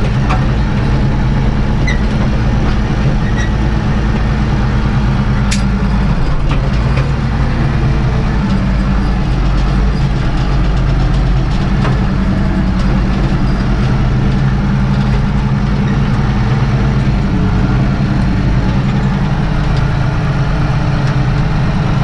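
Ursus 1224 tractor's six-cylinder diesel engine running steadily under way, heard from inside the cab. The engine note shifts about six seconds in.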